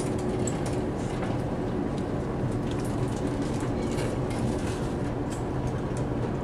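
Steady low drone of a car ferry's engines and machinery heard inside the passenger cabin, with a few faint light ticks over it.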